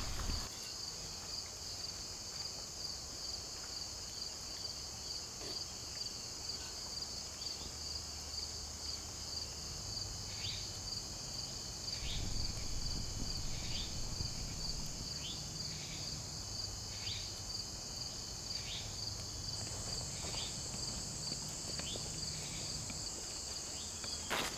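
Steady insect chorus: crickets trilling continuously in a high, fast-pulsing drone. In the second half, short falling chirps repeat about once a second over it.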